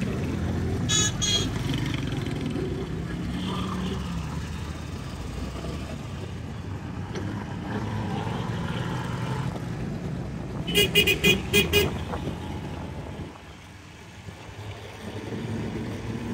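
Motorcycle engine running with the rumble of road traffic while riding. A vehicle horn toots twice about a second in, and a quick run of about five toots comes in the middle, the loudest sound.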